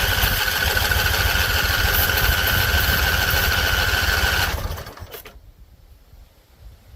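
Husqvarna Z254 zero-turn mower engine running steadily with a high whine over it, then shutting off about four and a half seconds in and dying away.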